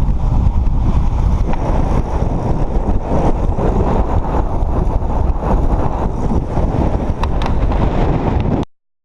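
Loud, steady low rumble of wind buffeting the microphone, with a vehicle-like noise underneath; it cuts off suddenly near the end.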